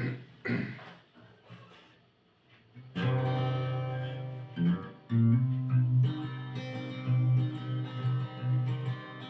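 A couple of short knocks, then after a brief near-quiet pause a guitar begins playing chords about three seconds in, with a steady low bass note under changing chords.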